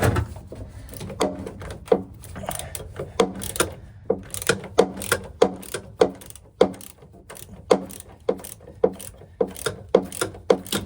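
Socket ratchet clicking in a steady run of short strokes, about three a second, as a pedal-assembly mounting bolt is backed out. The run pauses briefly about two-thirds through.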